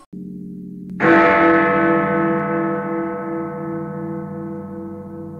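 A deep bell tolls once, struck about a second in and ringing on with a slow, wavering decay. A low drone plays just before the strike.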